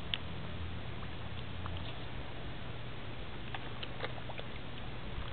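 A dog pawing at the water in a plastic kiddie pool: light splashes and a few small clicks over a steady background hiss.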